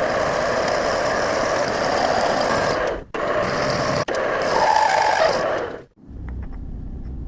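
Milling machine running and cutting with a loud, steady machining noise that breaks off sharply twice. Near the end it drops to a quieter low rumble.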